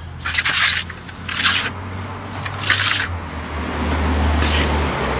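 Steel masonry trowels scraping, in four short strokes about a second apart, over a low steady hum.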